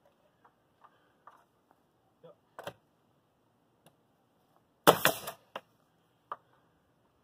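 Pneumatic coil nailer firing once into a window trim board, a single loud shot about five seconds in, with a few lighter clicks and knocks before and after.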